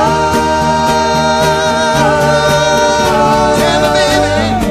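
Several voices of the band holding one long sung harmony chord over acoustic guitars and keyboard, shifting pitch slightly about halfway through and wavering with vibrato just before it ends.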